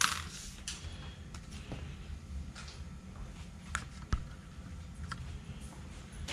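A few sharp, light clicks and taps over quiet room tone, as of small hard objects being handled and set down.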